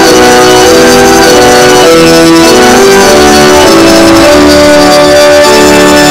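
A hymn tune played on instruments, in sustained chords that change every half second or so.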